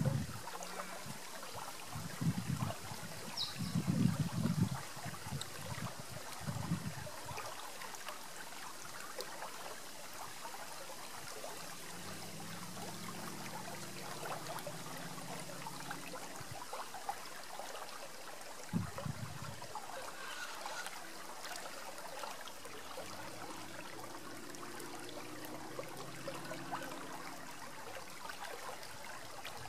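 Shallow river rippling and trickling over rocks, a steady flowing sound. A few low rumbles break in during the first seven seconds and once near the middle.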